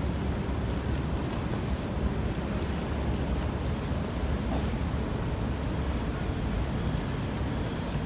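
Harbour ambience: a steady low rumble of wind and water, with wind on the microphone.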